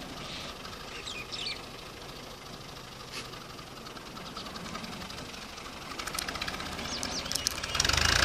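Diesel engine of a 480 Special farm tractor running steadily, getting much louder near the end. Short bird chirps come about a second in and again near the end.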